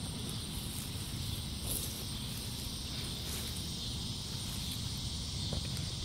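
Outdoor summer ambience: insects chirring steadily in a high, even band, over a low rumble of wind on the microphone.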